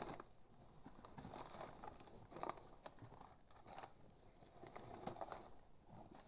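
Gift-wrapped paper parcels rustling and crinkling, with polystyrene packing peanuts shifting, as hands rummage through a cardboard box. It comes in irregular bursts, the loudest at the start and about two and a half and four seconds in.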